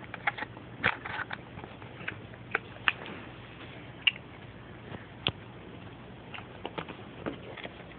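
Handling noise: scattered light clicks and taps as a Samsung SC-MX20 camcorder's plastic body is turned over in the hands.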